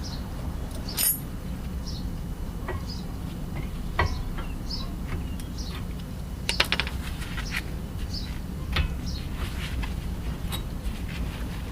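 A few sharp metallic clinks and a short rattle, about a second in, at four seconds, in a quick cluster midway and again near nine seconds, from hand tools and brake parts being handled during a brake pad change. Short repeated chirps from birds run behind them.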